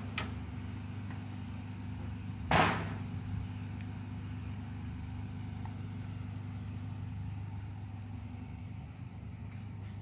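A steady low hum with one loud metallic crash about two and a half seconds in: the trailer's steel mesh ramp gate being let down to the ground.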